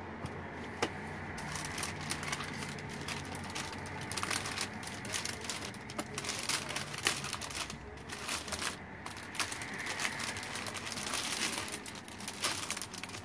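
Clear plastic packaging bag crinkling and rustling as it is handled and closed around a wind spinner, with irregular crackles throughout.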